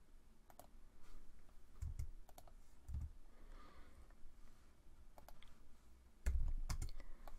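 Computer keyboard and mouse clicks: scattered single key presses and clicks with a few dull knocks, the loudest cluster about six seconds in.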